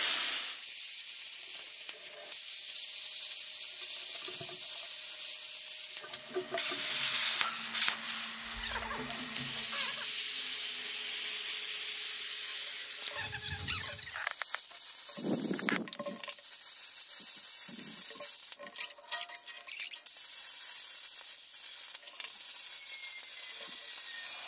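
Plasma cutter torch hissing steadily as it cuts along the edge of quarter-inch steel plate. The hiss breaks off briefly several times as the cut stops and restarts.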